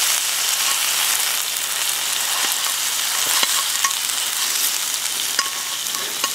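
Ground beef sizzling steadily in a cast-iron skillet, with a few light clicks of a fork against the pan as the meat is chopped up.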